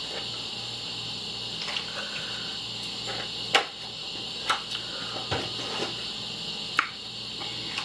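A few sharp clinks, the loudest about three and a half and four and a half seconds in, over a steady background hiss: tableware handled during cereal eating.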